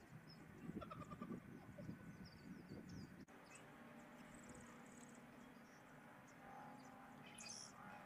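Songbirds chirping and calling faintly, with one sharper high call near the end. Under them, a low, uneven sound of unclear origin lasts about the first three seconds and is the loudest thing heard.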